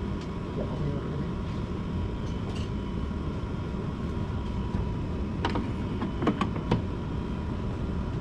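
Several sharp metal clicks and knocks, clustered between about five and seven seconds in, from hand tools working inside a car door, over a steady low hum.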